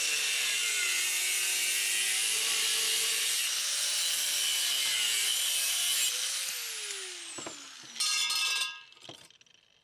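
Angle grinder with a cutoff wheel cutting through 2¼-inch metal exhaust pipe: a steady high hiss. About six seconds in the cut ends and the grinder spins down with a falling whine. A brief ringing metallic clatter follows about eight seconds in.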